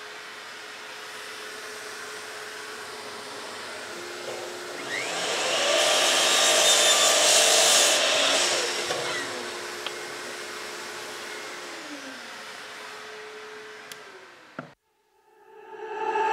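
Mitre saw running, its blade cutting through a wooden board. The cut grows loud about four to five seconds in and lasts about four seconds, then the motor runs free and winds down with a falling pitch. Music starts up near the end.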